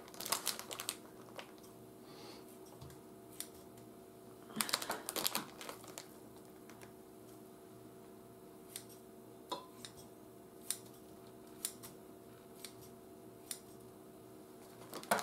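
Kitchen scissors snipping imitation seafood (surimi) into bite-sized pieces: two quick clusters of sharp clicks in the first half, then single snips about once a second.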